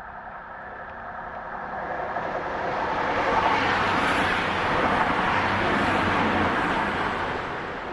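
A vehicle passing by: a rushing noise that swells over the first few seconds, holds loud, then starts to fade near the end.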